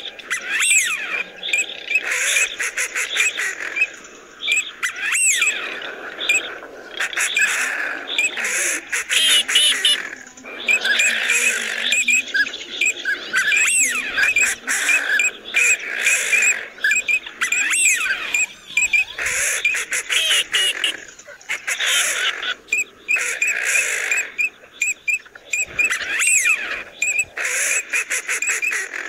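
Birds calling: many repeated whistled calls, several rising and falling in pitch, coming in dense bursts with short gaps between them.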